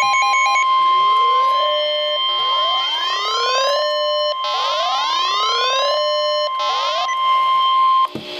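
NOAA Weather Radio's 1050 Hz warning alarm tone: one loud, steady, high tone announcing a new warning. It cuts off about eight seconds in. Over it, a second alarm sounds repeated rising whoops, roughly one every second and a half.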